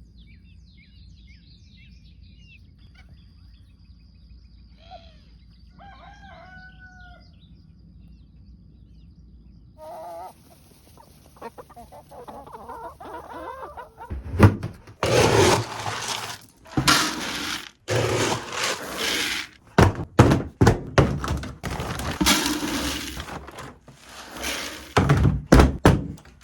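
A few chicken calls over quiet surroundings, then from about halfway through a run of loud, irregular clattering and thudding. These are the sounds of chicken feed being handled and poured at feeding time.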